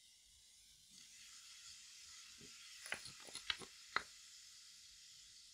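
Faint fizzing hiss of baking soda reacting with poured vinegar in a glass bowl. There are several light clinks of a small drinking glass against the bowl and wooden spoon between about three and four seconds in.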